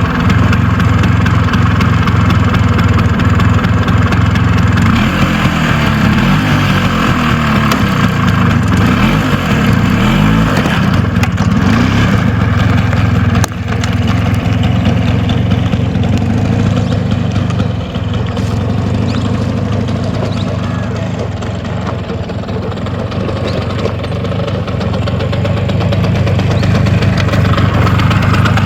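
Bajaj Chetak's two-stroke single-cylinder scooter engine running while the scooter is ridden, its pitch rising and falling with the throttle between about five and eleven seconds in.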